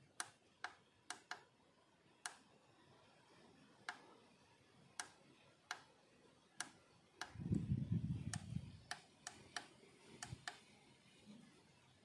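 Push buttons on a Leyden digital time switch clicking as they are pressed, more than a dozen short, sharp clicks at uneven intervals. About seven seconds in there is a low rumble lasting about a second and a half.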